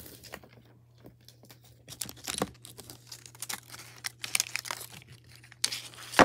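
Plastic shrink-wrap crinkling and tearing as a stack of red plastic dominoes is pulled out of it, the dominoes clicking against one another. The crinkling and clatter come in short spells, with a louder, denser burst near the end.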